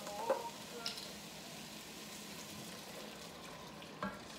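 Chicken broth pouring from a carton into a pot of cooked vegetables, a faint steady liquid sound, with a light knock near the end.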